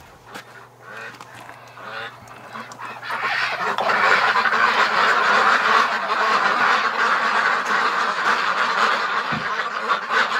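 A penned flock of domestic ducks, Rouen and Pekin types among them, quacking together: a few faint knocks at first, then about three and a half seconds in the flock breaks into a loud, dense, continuous chorus of quacks that keeps up to the end.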